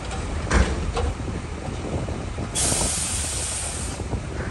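Heavy equipment engine rumbling low under load, with a sharp knock about half a second in and a lighter one a moment later. A burst of compressed air hisses for about a second and a half before cutting off sharply, typical of a truck's air brake releasing.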